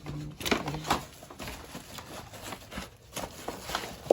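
Takeout food packaging being handled: a run of irregular rustles, taps and light clicks as items come out of a delivery bag.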